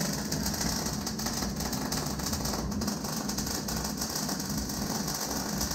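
Electric arc welding: a steady, dense crackling buzz from the welding arc over a low hum.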